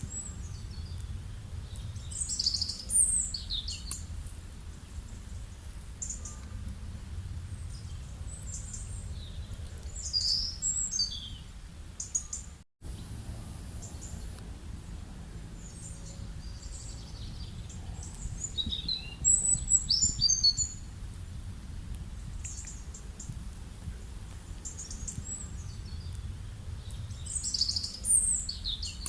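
Small birds calling in short bursts of high chirps every several seconds over a steady low rumble of outdoor background noise. The sound drops out for an instant a little before the middle.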